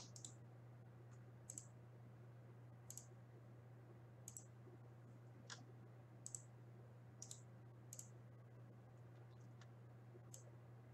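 Faint computer mouse clicks, about nine of them, often in quick pairs and spaced irregularly a second or so apart, over a low steady electrical hum.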